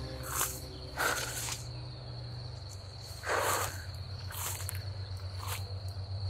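Footsteps swishing through tall meadow grass, about five brushing steps, over the steady high chirring of crickets.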